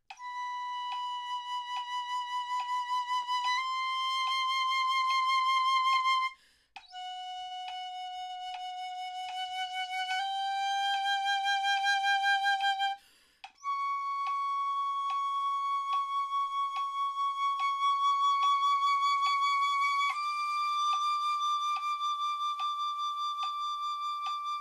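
Piccolo playing long sustained notes with vibrato in a warm-up tone study, each held note moving up a half step and swelling in loudness, with short breaths between three phrases. A metronome ticks steadily underneath at 72 beats a minute.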